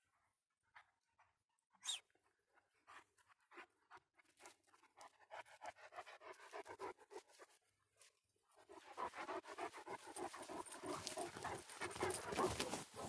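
A dog panting in quick breaths, faint at first and louder from about nine seconds in. A few light clicks and rustles come before it.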